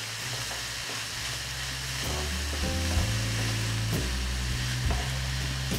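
Chopped prawns, onion and green chilli sizzling in a little oil in a nonstick pan while being stirred with a wooden spatula. Background music comes in about two seconds in.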